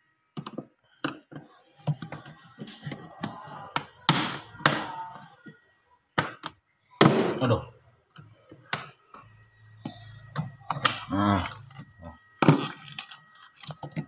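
A screwdriver prying at a fridge's plastic freezer panel gives irregular clicks, knocks and thunks of tool and plastic as the stiff clips are worked loose. Some muttered speech is mixed in.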